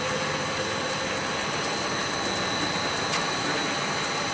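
Compound air bubble film production line running: a steady machinery noise with constant high-pitched whine tones, and a faint click about three seconds in.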